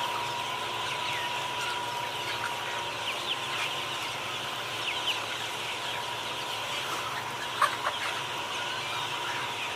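Many birds calling at once: a steady din of short, high chirps, with a couple of brief sharper calls near the end.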